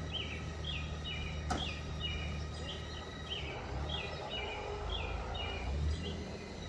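Small songbird calling in repeated short, falling chirps, one or two a second, over a steady low rumble; a single sharp click about a second and a half in.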